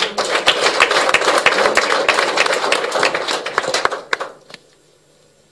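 Applause: many hands clapping, dying away about four seconds in.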